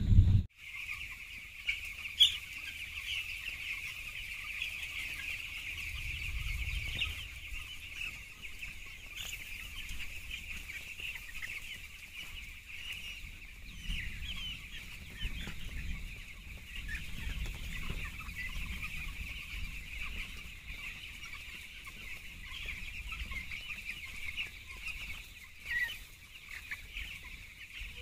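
Many young broiler chicks peeping continuously, a dense overlapping cheeping of the whole flock.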